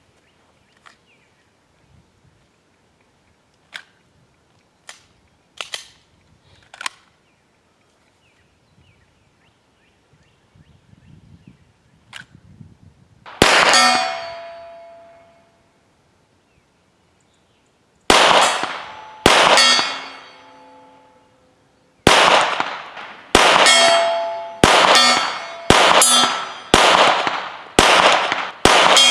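Custom Glock 17 9mm pistol fired at steel targets 50 yards away, about a dozen shots. Each shot is followed by the clang of the steel plate ringing on a hit. The first shots come singly a few seconds apart, and the last several come in quicker succession. Before the shooting there are only a few faint clicks.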